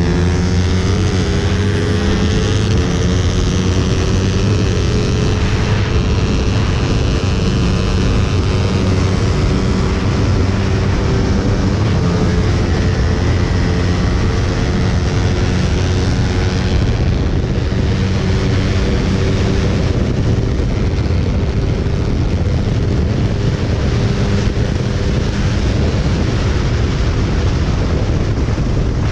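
Motorcycle engine running at speed while riding on a highway, with wind rushing past; the engine's pitch climbs a little in the first two seconds, then holds steady.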